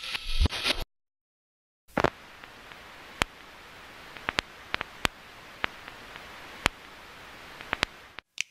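Static-and-crackle sound effect: a loud burst of crackling static that cuts off just under a second in, then after a second of silence a steady soft hiss with scattered sharp clicks and pops, in the manner of old film or record surface noise, stopping shortly before the end.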